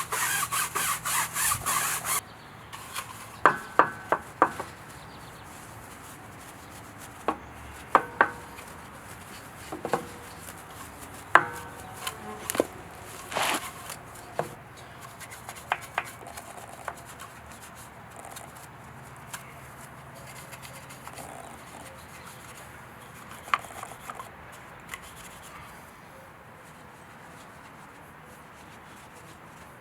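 A stiff detailing brush scrubbing in quick, rhythmic back-and-forth strokes, stopping about two seconds in. After that come scattered sharp clicks and knocks of handled tools and bottles.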